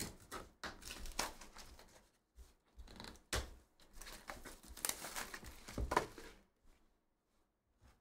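Plastic shrink wrap being torn and crinkled off a Panini One and One trading-card box, with rustling handling noises and a sharp click about three seconds in; it stops about six and a half seconds in.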